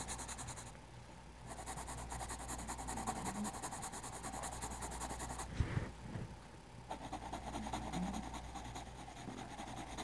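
Coloured pencil shading on drawing-pad paper: a fast, even scratch of back-and-forth strokes. It pauses briefly about a second in, and again for over a second near the middle, where there is a single soft bump as the hand shifts.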